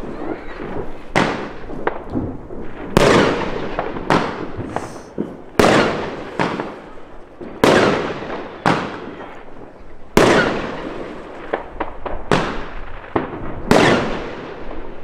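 Pangu 'Brazilian Box' fireworks cakes firing shot after shot: a loud bang every two seconds or so, with smaller bangs between, each trailing off in a long echo.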